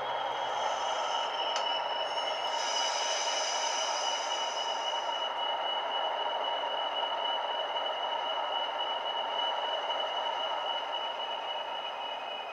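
A model Class 40 diesel's DCC sound decoder (Coastal DCC sound file, played through a small tablet speaker) running with the loco at a stand. It gives an engine hum under a high whistling tone that slowly falls in pitch, the Class 40's turbocharger whistle winding down. A high hiss sounds for a few seconds near the start.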